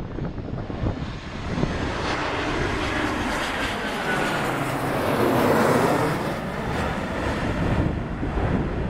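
Jet airliner's engines passing on landing: a rushing roar that builds to its loudest about halfway through and then eases off, with a faint high whine early on.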